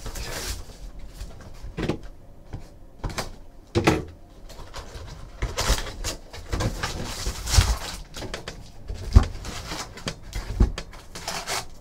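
Shrink wrap being pulled off a Fleer Ultra hockey card box and the cardboard box opened by hand: irregular crinkling and rustling with a few knocks.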